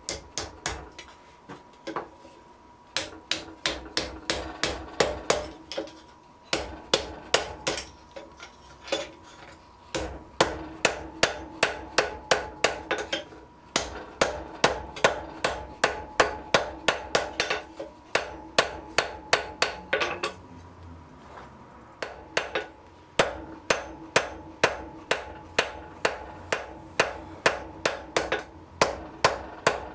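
Hand hammer striking red-hot iron on an anvil, in quick runs of about three blows a second with short pauses between runs, as the tail of a plate is forged into a hook. A steady ring sounds under the blows.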